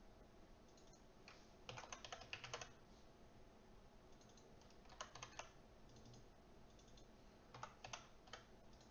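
Faint computer keyboard typing in a few short bursts of keystrokes.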